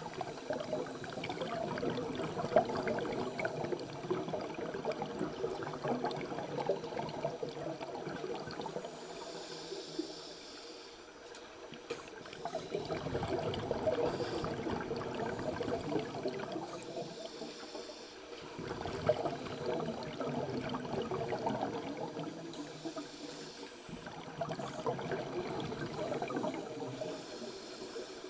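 Scuba regulator exhaust bubbles heard underwater, rising in surges of bubbling with brief lulls between them as the divers breathe out.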